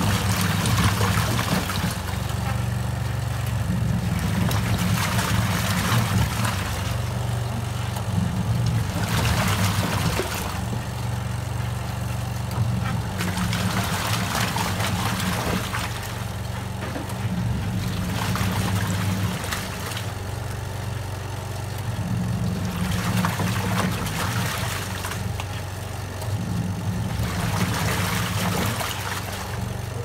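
Crafft CRB80-789ST twin-tub washing machine agitating a load of clothes in water. The motor hum runs for a few seconds, breaks off briefly and starts again as the pulsator reverses, with water sloshing in a surge each time it starts.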